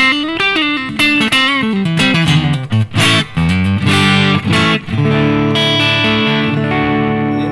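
Squier Stratocaster Affinity electric guitar played through a Yamaha THR10X amp on a crunch (lightly overdriven) setting. A quick riff of single notes and bent notes, then a chord struck about five seconds in and left to ring.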